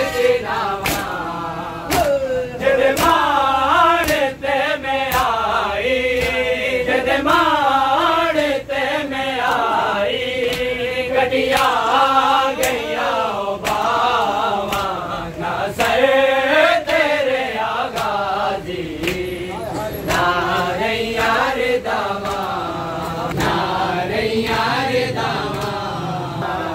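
A group of men chanting a noha together in unison, the melody rising and falling, with sharp slaps in time about once a second.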